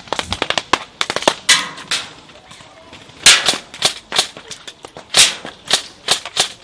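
Airsoft guns firing: a quick string of shots in the first second and a half, then louder single snaps every half-second to second.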